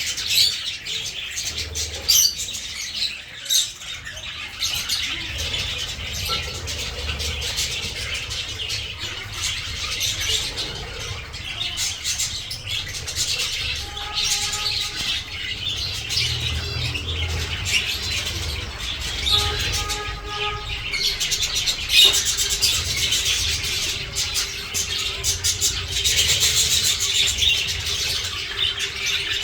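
A colony of small cage birds chirping and twittering continuously, many calls overlapping, with occasional wing flapping.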